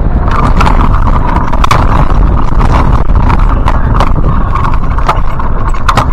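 Heavy wind buffeting the microphone of a hang glider's camera, a loud low rumble, with a steady band of hiss and scattered sharp clicks or flaps starting about a quarter second in.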